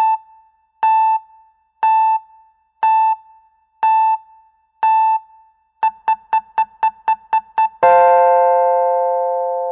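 Countdown timer's electronic beeps, one a second six times, then a quick run of about eight faster beeps, then a sustained chime of several notes that rings out and slowly fades: the alarm signalling that time is up.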